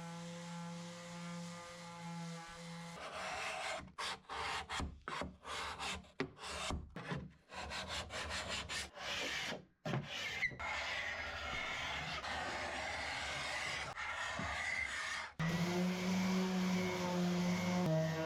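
Scraping on an oak cabinet: rough rasping strokes across the wood, stopping and starting in quick irregular passes, then a longer steady stretch of rubbing. A steady humming tone comes before the scraping and returns near the end.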